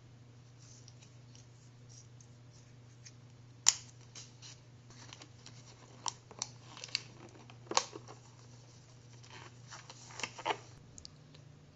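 Small handling noises: scattered clicks, scrapes and rustles, with one sharp click about three and a half seconds in, over a low steady hum.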